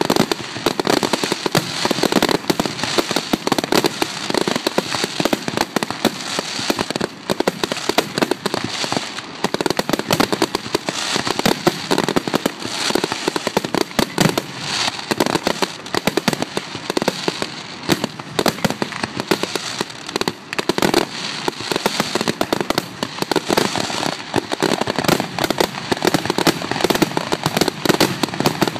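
Fireworks display: a dense, continuous barrage of aerial shell bursts, bangs following one another rapidly with no pauses.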